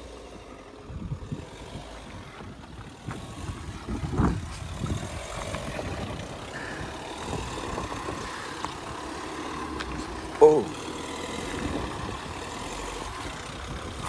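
Mahindra Thar's engine running steadily at low revs while the vehicle is manoeuvred over rough off-road ground. A short call from a person about four seconds in, and a louder short shout about ten seconds in.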